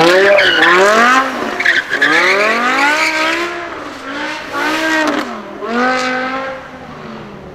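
BMW M5 E60's V10 revving hard as the car accelerates away. The pitch climbs and drops back several times as it shifts up through the gears, fading steadily with distance.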